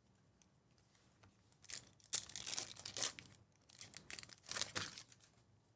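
Foil wrapper of a Topps Chrome baseball card pack being torn open and crinkled in the hands. It comes in two spells of rustling, starting about one and a half seconds in.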